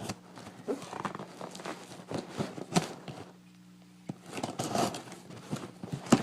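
Cardboard shipping box being opened by hand: irregular scraping, tearing and rustling of cardboard and packing, with a short pause about halfway through.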